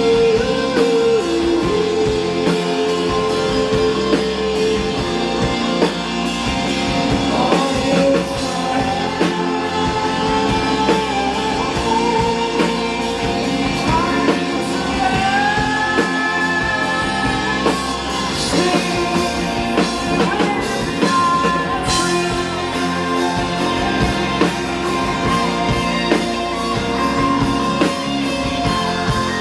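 Live rock band performing: a singer over electric guitar and drum kit, with a steady beat.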